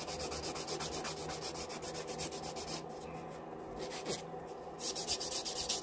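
A hand nail file rubbing back and forth over an acrylic nail to smooth its shape, in rapid even strokes with brief pauses about three and four seconds in.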